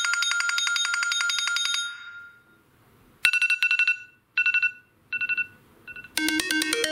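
iPhone SE 2020 stock ringtones played in turn: a fast, rapidly repeating electronic tone that stops about two seconds in, then after a short gap a pulsing two-tone beep that comes four times, each shorter and fainter like an echo. Near the end a new melodic ringtone starts.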